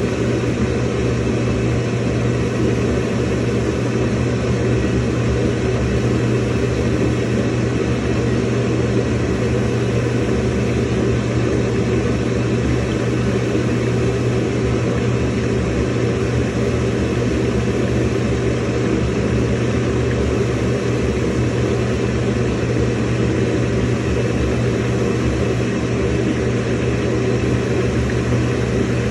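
Samsung washing machine filling with water: a steady, unchanging hum with an even wash of noise over it.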